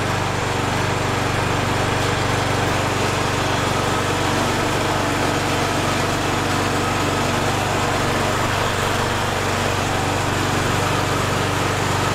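McCulloch riding lawn mower's engine running steadily and evenly just after starting, a sound the owner calls flawless.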